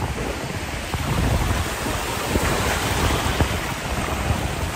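Sea surf washing and breaking in the shallows, with wind buffeting the microphone in a steady low rumble.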